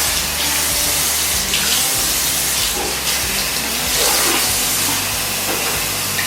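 Water running hard from a tap in a steady rush, cut off abruptly at the end.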